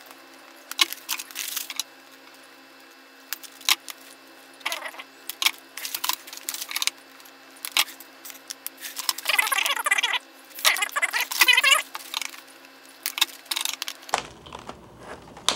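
Thick 7-mil mylar foil bags crinkling as they are handled, with scattered clicks and short snips of kitchen scissors nipping their corners. The longest crinkling comes in two stretches about two thirds of the way through.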